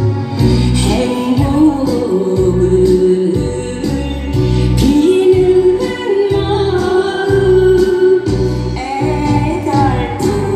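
A woman singing a Korean trot song live into a handheld microphone over a backing track with a steady bass beat.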